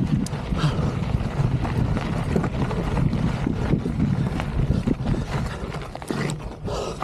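Wind buffeting the camera microphone over the rolling rumble of a Polygon Siskiu mountain bike riding across rocky desert ground, with frequent irregular knocks and rattles as the tyres hit loose stones.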